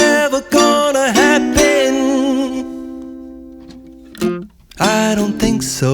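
Background song: a voice singing over a plucked-string accompaniment, ending a line on a long held note that fades away, then the song picks up again near the end.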